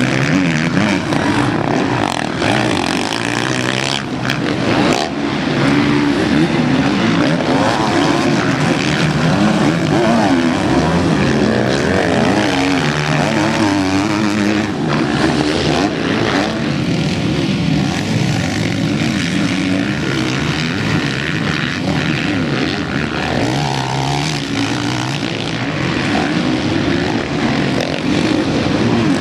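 Several motocross bikes racing, their engines overlapping and revving up and down as the riders accelerate and shift through the track.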